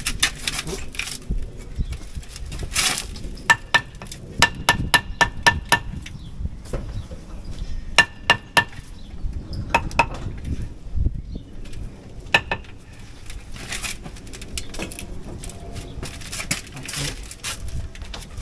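Hand tools chipping out brickwork and render: ringing metallic hammer-on-chisel strikes in quick runs of about four a second, with scraping and crumbling rubble between, as the opening over a window is cut out for a concrete lintel.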